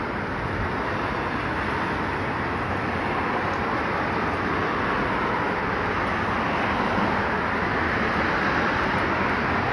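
Steady hiss of heavy rain pouring onto wet pavement and parked cars.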